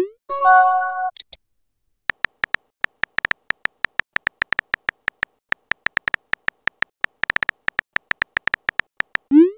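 Phone-keyboard typing clicks from a texting-story app, coming rapidly as a message is typed letter by letter. About half a second in there is a short chime of a few steady tones with small high blips after it, part of the app's message-sent sound. Near the end a rising whoosh marks the next message going out.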